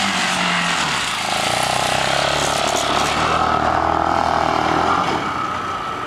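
Bashan 250cc quad's engine running as it is ridden across grass. The engine note drops about a second in, then picks up again and holds until it eases off near the end.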